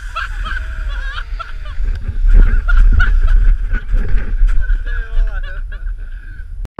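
A man laughing in bursts over a heavy low rumble of wind and handling on an action camera's microphone, with a few knocks. The sound cuts off abruptly near the end.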